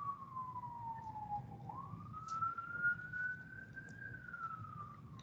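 A siren wailing faintly: one tone slides slowly down, sweeps back up about halfway through, then starts falling again.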